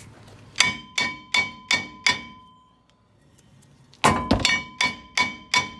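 A small 8-ounce hammer striking the brake rotor and hub of a truck's front wheel, each blow ringing metallically, to knock the stuck hub off the spindle. There are two runs of about five blows each, about three a second, with a pause of about two seconds between them.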